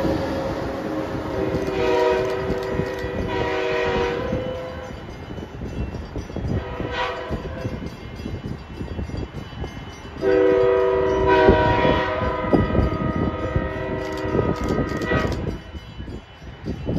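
Multi-note train horn sounding: two short blasts about two and three seconds in, then one long blast of about five seconds past the middle. Under it runs the rumble and wheel clatter of a train.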